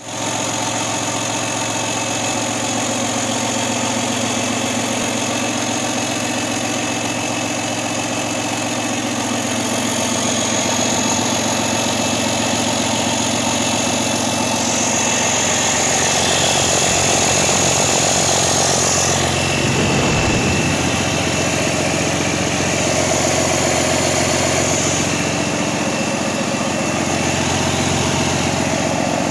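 Cummins ISB 5.9-litre 24-valve turbocharged inline-six diesel idling steadily during a test run.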